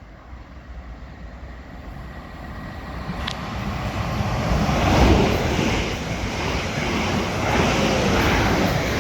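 Two coupled Class 444 Desiro electric multiple units passing through the station at speed. The rush and rumble of the train builds over the first few seconds and stays loud as it goes by, with a sharp click about three seconds in.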